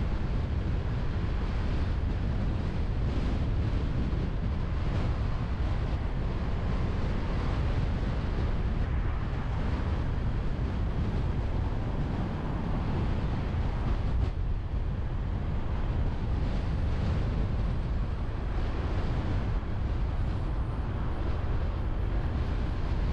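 Steady wind noise buffeting a car-mounted GoPro action camera's microphone, over the low rumble of tyres and road noise from the moving car.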